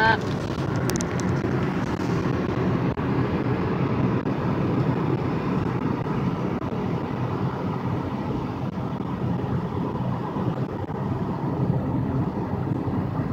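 Steady low rumble and hiss of a car's engine and road noise, heard from inside the cabin.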